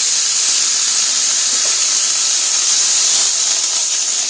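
Buttered grilled cheese sandwiches frying, a steady, even sizzle.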